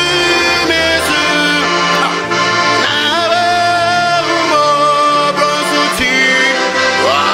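Accordion playing a worship tune, with sustained chords over a bass line that steps from note to note.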